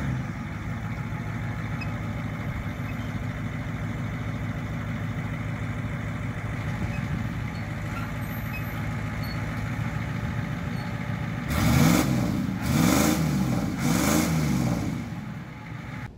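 Heavy-duty pickup truck engine idling steadily, then revved three times in a row near the end, each rev rising and falling in pitch.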